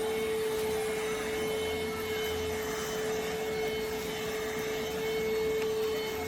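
Vacuum cleaner motor running steadily, a rushing air noise with a constant pitched whine.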